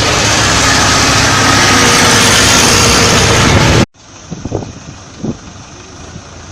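Tractor diesel engines running loud and hard under load while pulling a stuck combine harvester. About four seconds in the sound cuts off abruptly to a much quieter background of engine noise with a few short, sharp sounds.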